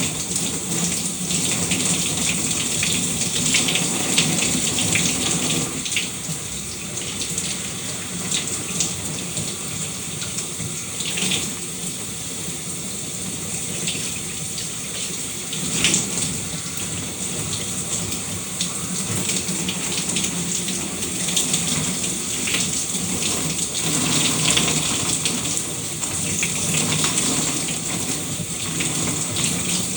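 Shower spray running steadily and splashing down, a continuous hiss of water with quick uneven splatters.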